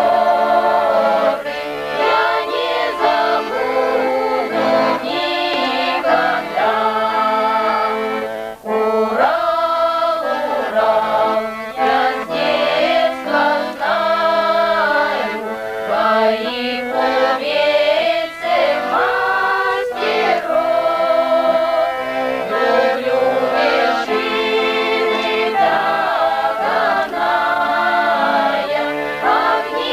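Background music: voices singing in chorus over instrumental accompaniment, in continuous sung phrases.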